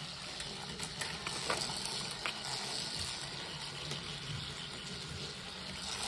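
Steady faint hiss with a few light clicks of a small plastic toy train being picked up and handled.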